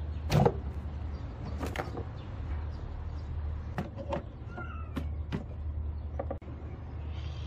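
Hands working a car's plastic air filter box and ribbed rubber air intake duct loose: scattered plastic clicks and knocks, the loudest about half a second in, and a brief squeak near the middle, over a steady low rumble.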